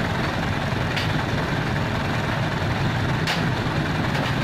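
A light truck's engine running steadily at low revs, with a few short sharp clicks over the hum.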